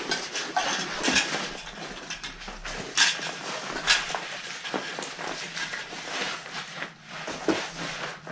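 Rustling of fabric and bag straps as a backpack and a shoulder bag are pulled on, with scattered clicks and knocks from buckles and handling.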